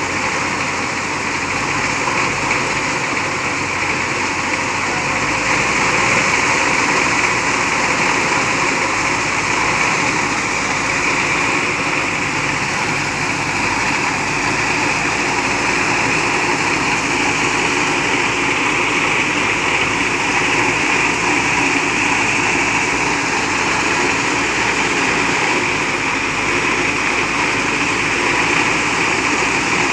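Heavy truck engine running steadily at idle, with a steady hiss over it; most likely the recovery trucks' engines kept running to work the crane and winch.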